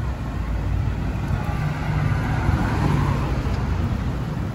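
Street traffic noise from cars on a city road, with one car passing, loudest about two to three seconds in.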